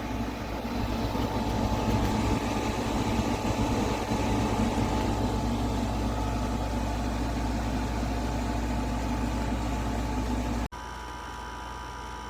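Midea inverter window air conditioner running steadily, a low hum with airflow noise and a few steady tones. About ten seconds in the sound cuts suddenly to a quieter, even hum.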